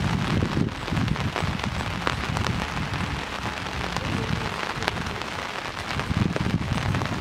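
Rain falling steadily, with scattered sharp taps of drops landing close by, under irregular low rumbling swells.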